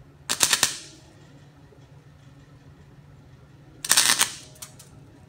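Wire-feed welder arc crackling in two short bursts of about half a second each, one near the start and one about four seconds in: tack welds holding a broken exhaust pipe section in place. A faint steady hum runs underneath.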